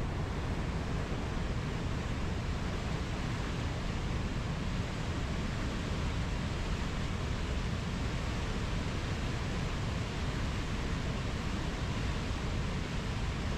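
Ocean surf: a steady, continuous wash of waves with no separate breakers standing out.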